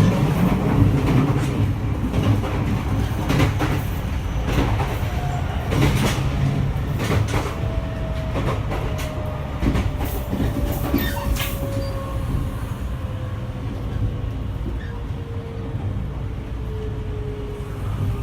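E653-1100 series electric train heard from inside the car: its Hitachi three-level IGBT VVVF inverter whine glides steadily down in pitch over a low running rumble, the sign of the train slowing, with wheels clacking over rail joints.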